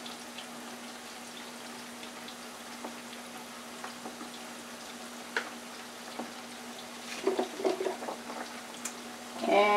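French fries frying in olive oil in a small electric deep fryer: a steady, low sizzle, with a few light ticks on top.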